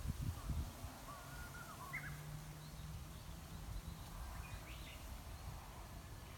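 Light wind in a bamboo grove: a faint rustle of leaves over a low rumble, with a few short bird chirps scattered through.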